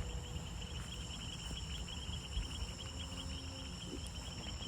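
Chorus of crickets and other insects: several steady high-pitched trills and a fast pulsing chirr, over a low rumble.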